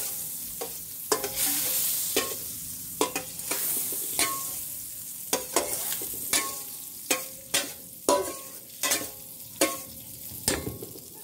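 Butter melting and sizzling in a stainless steel wok while a metal ladle stirs it. The ladle clinks and scrapes against the ringing pan about once or twice a second, and the sizzle grows fainter toward the end.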